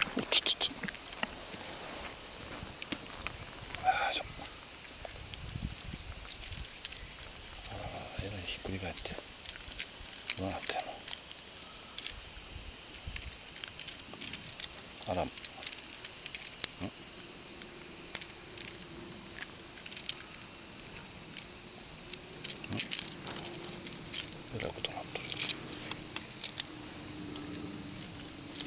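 Steady high-pitched chorus of insects shrilling without a break, with scattered faint clicks and knocks beneath it.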